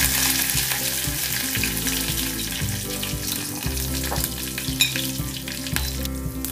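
Whole spices, chillies and curry leaves sizzling and crackling in hot oil in a small steel saucepan: a tadka being tempered. The sizzle eases a little over the seconds.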